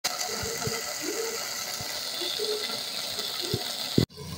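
Beef stew cooking in a metal pot on the stove, with a steady hiss and a few light clinks of a spoon against the pot. The sound cuts off with a sharp click about four seconds in.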